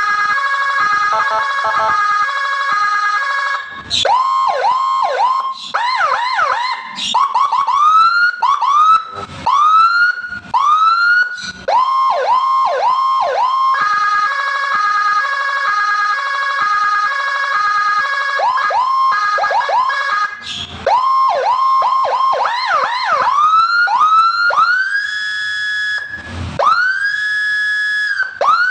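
Replica Whelen HHS 5-watt electronic siren, loud, switching between its tones: a rapid two-note alternation, rising sweeps repeating about once a second, quick yelps, and slow wails that rise and hold near the end.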